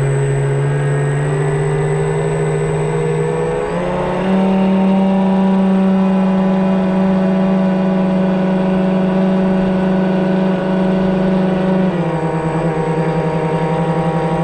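Electric drive motors of a 1:40 scale radio-controlled model catamaran ferry whining steadily under way. The pitch steps up about four seconds in and drops back about twelve seconds in.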